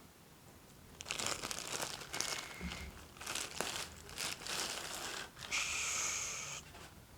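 Plastic packaging crinkling and rustling in irregular bursts as the handheld vacuum's main unit is unwrapped, ending in a longer continuous rustle just before the end.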